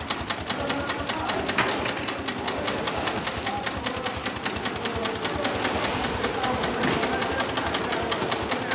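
Sailmaster 366-76-12 heavy-duty industrial zigzag sewing machine running steadily, a rapid, even clatter of needle strokes as fabric is fed through.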